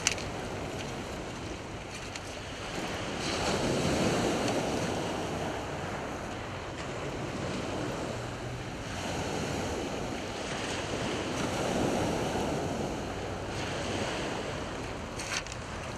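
Small waves breaking and washing over a shingle beach, the wash swelling and fading twice.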